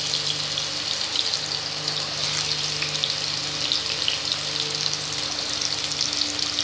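Slices of pumpkin sizzling in hot oil in a kadai: a steady frying hiss with small crackles and pops throughout, over a faint steady hum.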